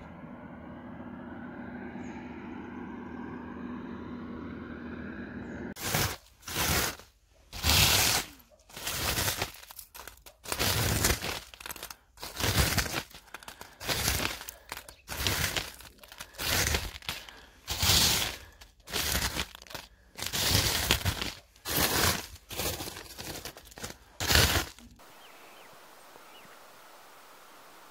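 A hand scraping and crunching a thick crust of frost and ice on a car's bodywork, in a run of loud gritty strokes about one a second that stop suddenly near the end. The strokes follow about six seconds of faint background.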